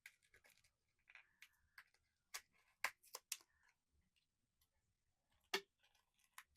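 A small cardboard blind box being handled and opened: scattered sharp clicks and snaps of card and packaging with faint rustling. The loudest snaps come in a cluster about three seconds in and once more near the end.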